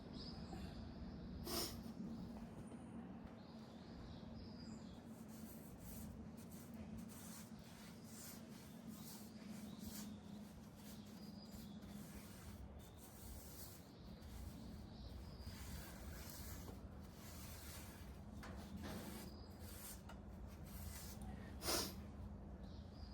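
Faint, irregular rubbing and scraping on wood, with a steady low hum underneath and two sharp clicks, one about a second and a half in and one near the end.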